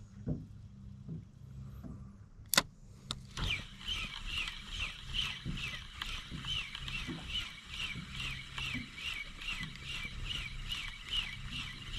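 Spinning reel's bail snapping shut with a sharp click, then the reel cranked fast to retrieve a jig, its whir pulsing about three times a second with each turn of the handle.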